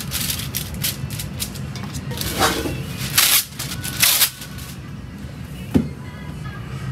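Background music, with three short rasping rustles of a kitchen sheet being pulled from its dispenser box and torn off, then a single sharp knock near the end.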